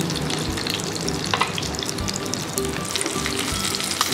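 Oil sizzling and crackling with frequent small pops around semolina-coated, masala-stuffed Indian mackerel shallow-frying in a pan. Background music with a steady beat plays underneath.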